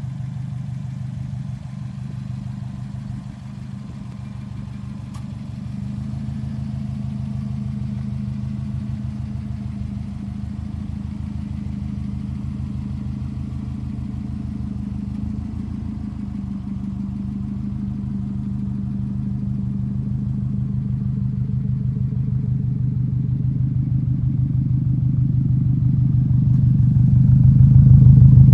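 2016 Subaru WRX STI's turbocharged 2.5-litre flat-four idling steadily with a low, even rumble. It grows louder over the last several seconds as the microphone comes close to the exhaust.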